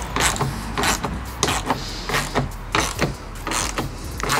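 Ratchet wrench clicking in short strokes, about one or two a second, tightening the bolts that hold a spoiler to a car's trunk lid.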